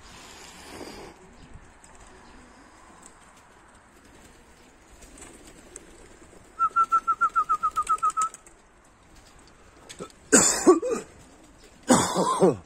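Birds outdoors: a rapid trill of about a dozen even notes in the middle, then two short, louder bursts of bird sound near the end.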